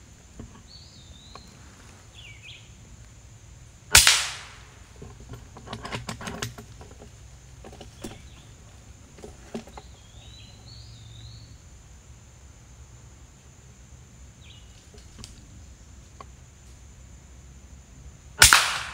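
Two shots from an FX Impact .22 PCP air rifle, sharp cracks about 4 seconds in and again near the end, each fired at a squirrel high in a tree. A second or two after the first shot comes a brief cluster of fainter clicks.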